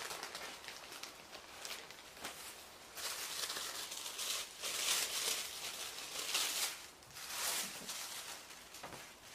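Thin tissue paper rustling and crinkling as a sheet is pulled out, unfolded and handled, in several uneven swells that are loudest through the middle.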